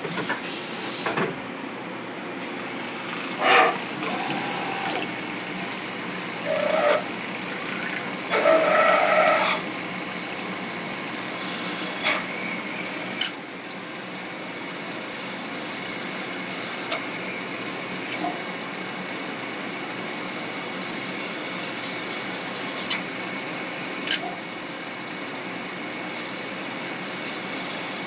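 Hurco BMC 20 CNC vertical machining center milling: a face mill cutting a workpiece under coolant, a steady noisy machining sound with a few sharp clicks. In roughly the first ten seconds there are several short pitched tones and clunks from the machine before the sound settles into the steady cut.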